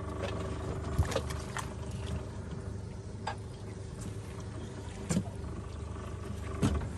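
Crawfish boat's motor idling steadily, with about five short knocks and rattles from crawfish traps being handled in the metal boat.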